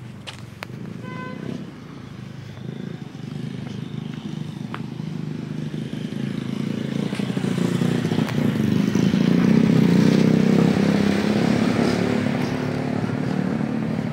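A motor vehicle's engine passing on the street, growing louder to its peak about ten seconds in and then fading. A brief high beep sounds about a second in.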